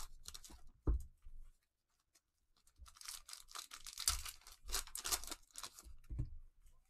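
Cellophane wrappers of trading-card cello packs being torn open and crinkled by gloved hands, in two spells of crackling with a pause between. Two soft thumps, about a second in and near the end.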